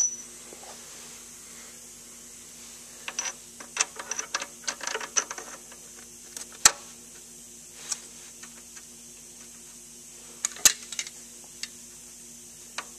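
Metal clicks and taps of connecting rod bolts being worked by hand through the rod and cap of a 1939 Farmall F-20 engine; the bolts fit tight. There is a flurry of clicks a few seconds in, then two single sharp clicks, over a faint steady hum.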